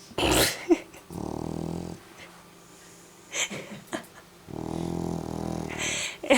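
Dog snoring in its sleep: two drawn-out buzzy snores about three seconds apart, each lasting about a second. A short loud noise comes just before the first.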